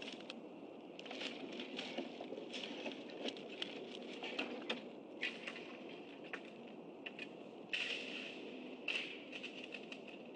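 Dry sticks and nest grass crackling and rustling as an adult bald eagle works the nest material. Scattered irregular clicks, with a louder scrape about eight seconds in and another just after.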